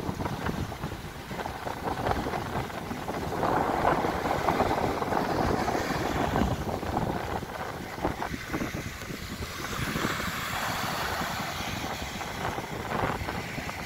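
Wind gusting against the microphone in a rough, rumbling rush, with small waves breaking and washing up on a sandy beach; the hiss of the surf grows stronger in the last few seconds.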